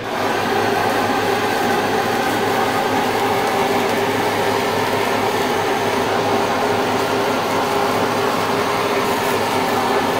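Handheld gas kitchen torch burning with a steady hissing flame as it sears the surface of braised pork; it starts abruptly at the beginning and holds level.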